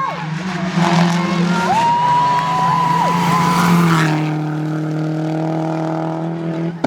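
Rally car engine running hard with tyres squealing through the first few seconds, then the engine note holds steady at one pitch.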